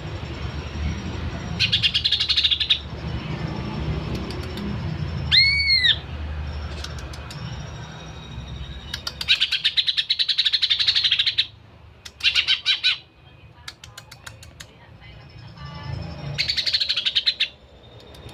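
Green leafbird (cucak hijau) singing its mimicry-rich song: four bursts of rapid, buzzy high trills and one loud arched whistle about five seconds in.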